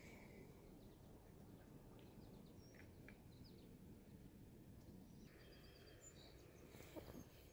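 Near silence: faint outdoor background noise with a few faint, high bird chirps, and a soft knock near the end.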